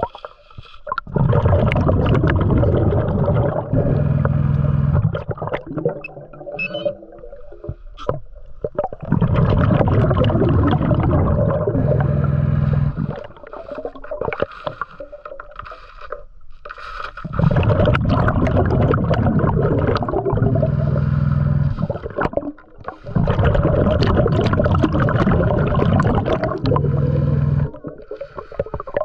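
Underwater, a diver's exhaled breath bubbles out of the breathing regulator four times in long bursts of about four seconds each, with a steady low hum near the end of each one. Between the breaths there are quieter scrapes and clicks.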